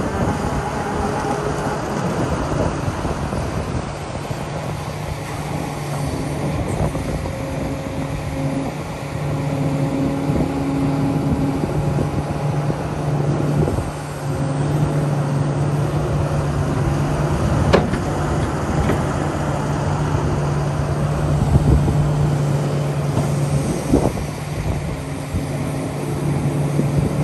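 Diesel engine of a Kobelco SK380SR excavator running, a steady pitched hum that swells and eases in level. There are a couple of sharp knocks, about two-thirds of the way through and again near the end.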